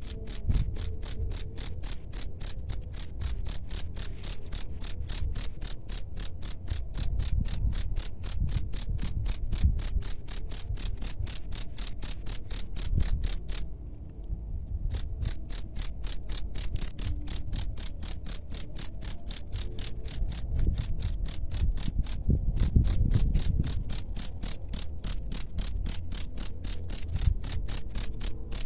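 A cricket chirping: a long run of evenly spaced, high-pitched chirps that stops for about a second roughly halfway through, then resumes.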